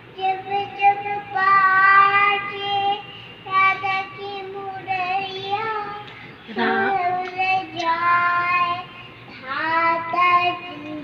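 A young girl singing a song into a handheld microphone, in phrases of long held notes separated by short breaths.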